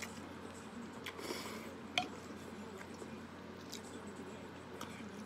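A person slurping and chewing noodle soup, with a few light clicks of utensils against the bowl. The sharpest click comes about two seconds in.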